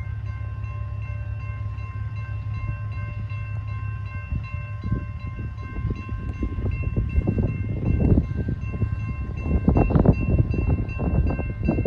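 Grade crossing warning bell ringing steadily over the low rumble of a slow-moving Union Pacific intermodal freight train. From about four seconds in, irregular low thumps and rattles build up, loudest near the end.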